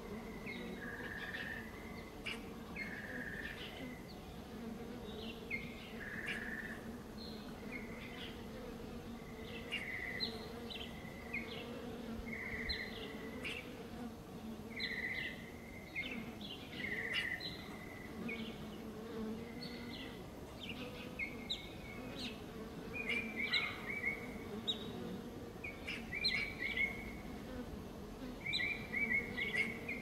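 Honey bees buzzing as a steady low hum while they work the flowers for pollen. Songbirds chirp short repeated phrases over it, with louder trilled phrases near the end.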